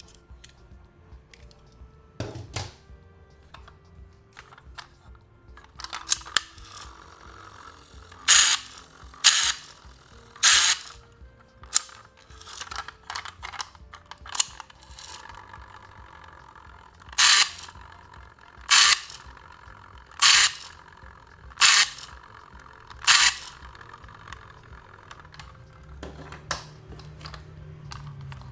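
Hard plastic toys being handled, giving a run of sharp clicks and clacks, the loudest five coming about a second and a half apart in the second half. Faint background music plays underneath.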